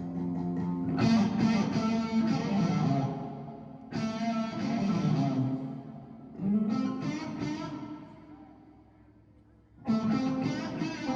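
Electric guitar chords, strummed one at a time and left to ring out. There are about four of them, each fading before the next.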